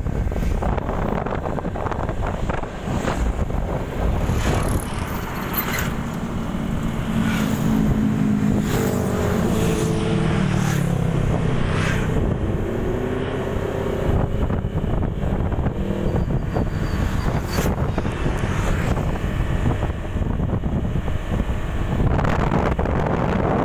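Motorcycle engine running on the move, with wind rushing and buffeting on the microphone. The engine note rises and falls through the middle of the stretch.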